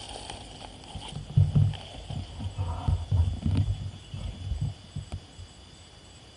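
Irregular low bumps and rumbles from a scope-mounted camera and rifle being handled and swung about, clustered in the first five seconds with a sharp knock about a second and a half in. A faint steady high ringing sounds underneath.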